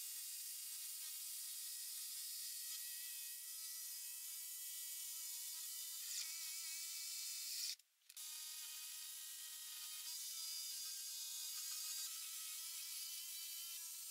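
Corded electric jigsaw cutting through a wooden worktop: a steady motor whine with a hiss above it. The sound drops out briefly about eight seconds in, then carries on as before.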